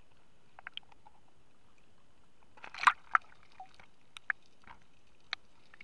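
Small waves slapping and splashing against a waterproof camera housing bobbing at the sea surface, with a louder splash about three seconds in and a few sharp clicks after it.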